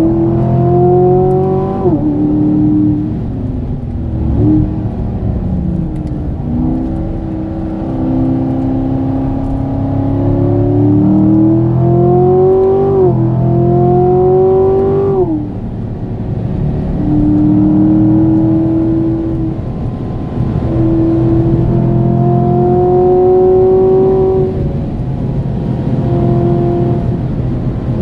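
Chevrolet Corvette C7's 6.2-litre V8 under hard acceleration, heard from inside the cabin. The engine's pitch climbs and drops sharply at each gear change of its 8-speed automatic, once about two seconds in and twice around the middle, then holds fairly level with slow rises.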